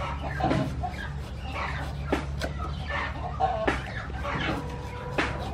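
Hens clucking, with several sharp knocks and cuts of a cleaver slicing the skin off a pineapple on a wooden chopping board.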